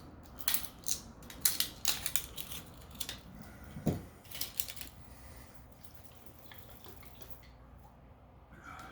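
Handling clicks and taps of a hot sauce bottle being opened and sauce dispensed, a quick run of sharp clicks over the first few seconds with a dull knock about four seconds in, then quieter.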